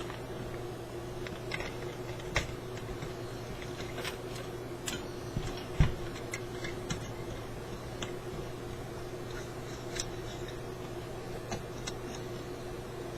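Scattered light clicks and taps at uneven intervals, with one heavier knock about six seconds in, over a steady hum.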